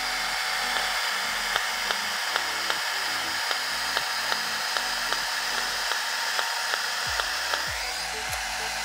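Ulike Air 10 IPL hair removal device running in fast mode: its cooling fan whirs steadily while the device clicks with each flash, about two to three clicks a second.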